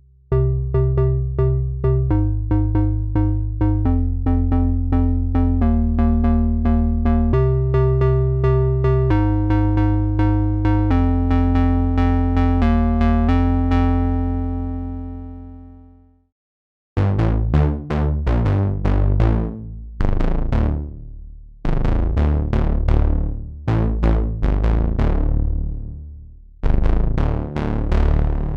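Gforce Software Oberheim SEM software synthesizer playing demo patches: a held bass and melody line stepping to a new pitch every second or two over a quick pulsing rhythm, which fades out about sixteen seconds in. After a brief gap comes a series of bright plucked chords, each one dying away and darkening quickly, roughly every second and a half.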